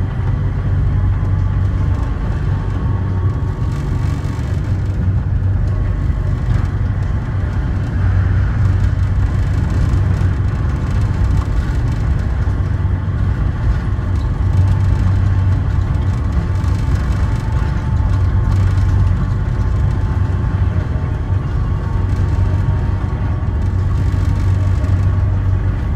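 Sengkang LRT's rubber-tyred automated light-rail train running along its track: a steady low rumble with a faint whine above it.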